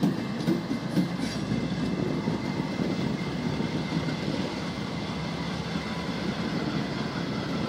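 Norfolk Southern GE Dash 9-40CW diesel-electric locomotives hauling a coal train at slow speed, running with a steady low rumble, heard from a car pacing the train.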